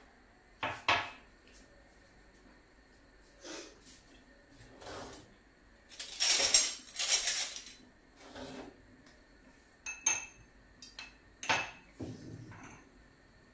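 Glass jug and spoon knocking and clinking on a kitchen counter, with a tap running for about two seconds in the middle as water goes into the jug onto coconut milk powder.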